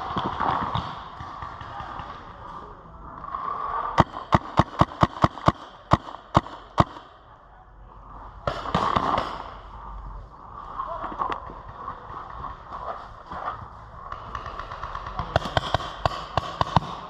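Paintball marker firing a rapid volley of about eleven shots, roughly four a second, then another quicker, fainter burst of shots near the end.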